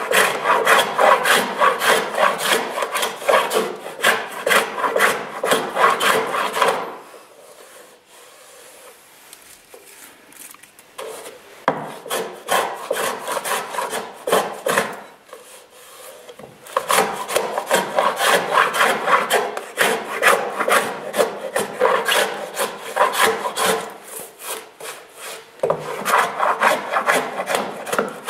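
Hand plane shaving the bevelled lap edge of a wooden boat plank in quick, short, rasping strokes. The strokes come in runs of several seconds, with a longer pause about 7 s in and brief breaks later.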